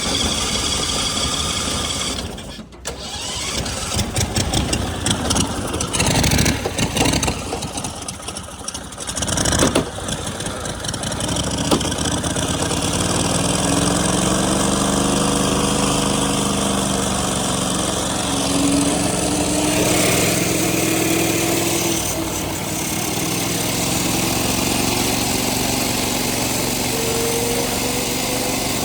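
A go-kart's 16-horsepower gas engine being cranked with the throttle held open, sputtering unevenly for about the first ten seconds. It then runs steadily, its speed rising and falling.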